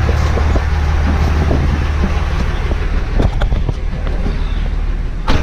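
Dodge Ram pickup idling steadily while its driver's door is opened and shut. There are a few latch clicks about three seconds in, then a sharp thump of the door closing near the end.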